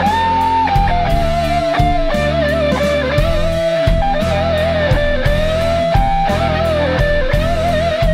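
Electric guitar music: a lead guitar holds long notes with vibrato and small bends over a low rhythm part that stops and starts.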